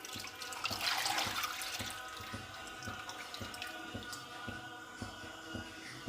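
Tomato puree being strained through a sieve: wet pouring and dripping, with many small light taps and scrapes.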